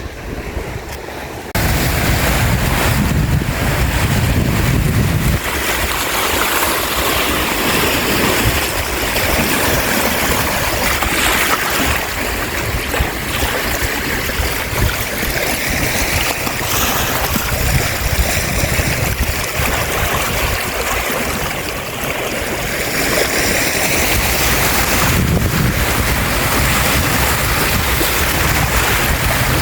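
Lake Michigan waves washing onto the shore, with wind rumbling on the microphone; the sound cuts in suddenly about a second and a half in and then runs on steadily with gentle swells.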